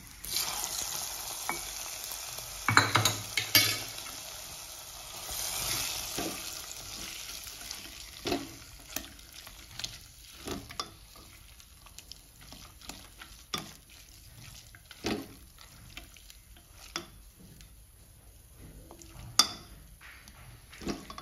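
Hot ghee with fried cashews poured into a pressure cooker of thick carrot halwa, sizzling for the first several seconds, with a few sharp knocks about three seconds in. Then a silicone spatula stirs the sticky halwa, scraping and knocking against the cooker's metal sides about once every second or two.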